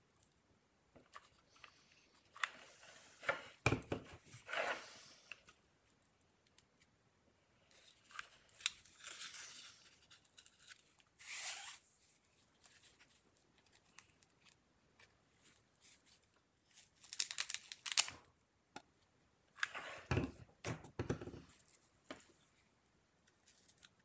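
Hawk feathers being handled and fitted by hand: irregular short, crisp rustling and tearing sounds, in several separate bursts with quiet gaps between.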